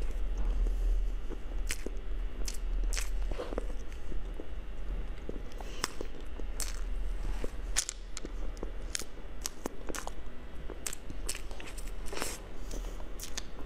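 Close-miked eating of a soft cream cake: bites, chewing and wet mouth smacks, heard as irregular sharp clicks over a steady low hum.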